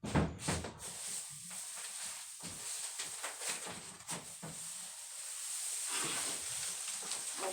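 Rustling and scattered light knocks over a steady hiss: hay and clothing brushing against the phone and the loft while climbing about in loose hay.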